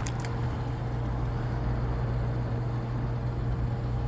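Steady low mechanical hum, with a couple of light clicks right at the start.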